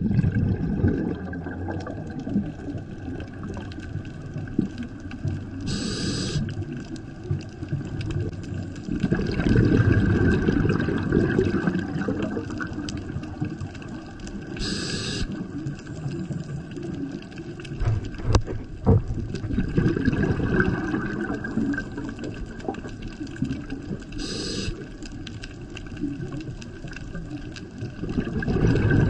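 Scuba diver breathing through a regulator underwater: a short hiss on each inhalation, then a swell of bubbling on the exhale, repeating about every nine seconds.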